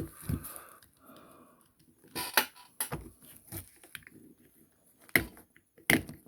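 Small hard clicks and knocks of metal and plastic toy parts being handled, a few sharp taps spaced over several seconds, as the drilled-out die-cast transport pod is worked apart by hand.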